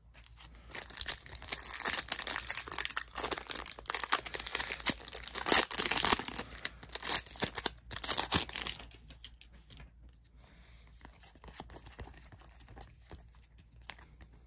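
Foil trading-card pack wrapper being torn open and crinkled, a dense crackle for about eight seconds. It stops, and only faint ticks of cards being handled and fanned are left near the end.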